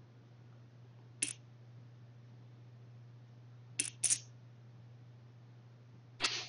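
Short clicking chip sound effects from an online poker game client as bets go in: one click about a second in, two in quick succession near four seconds, and one more just before the end, over a steady low hum.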